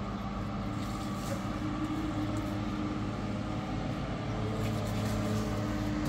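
A steady low mechanical hum, as of a machine running, with a few faint clicks.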